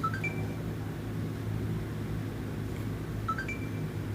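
Xbox One console's touch power button beeping twice, a short rising two-note tone, the second about three seconds after the first, over a steady low hum. The console does not start: its power brick is stuck on the orange light.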